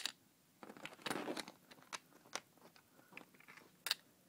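Hands handling a Lego puzzle box: a short scraping rattle of plastic pieces about a second in, and several sharp small clicks.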